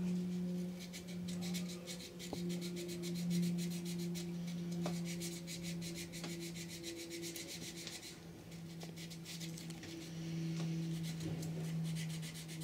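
Sandpaper rubbed by hand in quick short strokes along the edges of a small wooden tau-cross blank, smoothing edges left rough from sawing. The strokes grow fainter about two-thirds of the way through.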